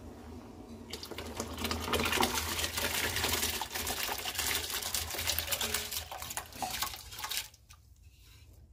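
Soaked rice being poured into a pot of rolling-boil salted water. About a second in, a loud rushing, splashing hiss starts and runs for some six seconds before dropping away near the end.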